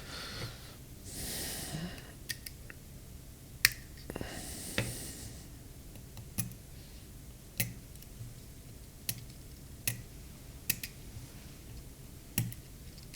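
About eight sharp small clicks, spaced a second or so apart, of metal tools on the parts of an iPhone 11 Pro as its connectors are unclipped and it is taken apart, with two short soft rushing sounds in the first few seconds.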